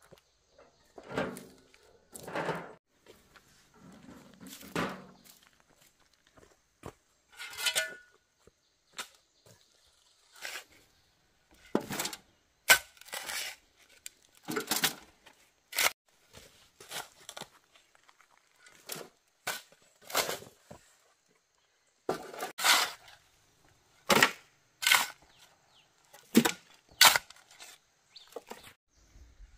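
Irregular series of sharp knocks and short scrapes, roughly one or two a second with pauses, with a few longer, duller scrapes in the first few seconds.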